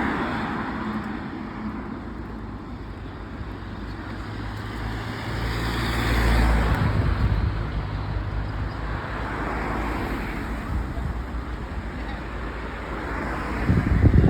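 Road traffic: several cars passing one after another, each rising and fading over a couple of seconds.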